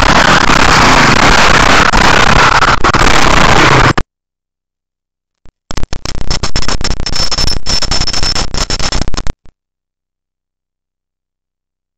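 KTM enduro motorcycle engine running hard right next to the microphone, so loud that it is badly clipped and distorted, cutting off abruptly about four seconds in. After a gap of silence, a few more seconds of crackling, distorted noise, then silence.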